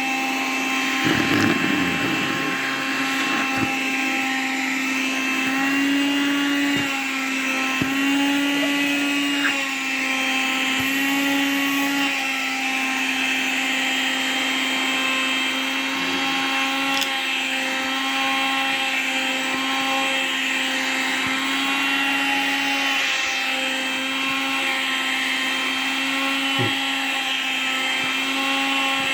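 Vacuum cleaner motor running steadily with a whine while sucking at a swimsuit. Its pitch steps up slightly for a second or two several times in the first half. There is a brief rustling burst about a second in and a few soft knocks.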